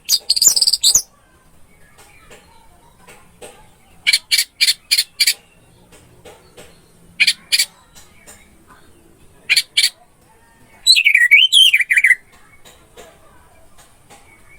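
Orange-headed thrush singing in short loud phrases with pauses between them: a warble at the start, a quick run of five notes about four seconds in, then groups of three and two notes, and a twisting warbled phrase near the end.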